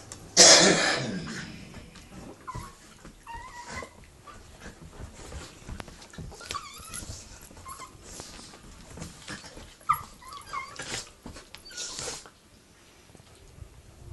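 Two small dogs play-fighting: a loud rough growling scuffle about half a second in, then high, whining whimpers and yips now and then, with huffs and snorts between them.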